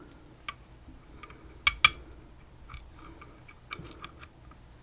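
Small metal clicks and ticks from the pins and parts of a disassembled lock cylinder being handled, irregular and scattered, with two sharper clicks a little under two seconds in.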